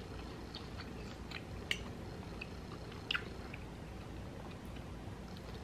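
Soft, close-up chewing of ribeye steak, with light ticks and two sharper clicks about a second and a half apart from a fork against a plate.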